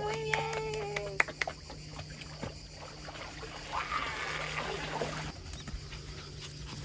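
Water splashing and sloshing in an above-ground frame pool as a small dog paddles and is lifted out of the water, with a brief burst of splashing and dripping about four seconds in.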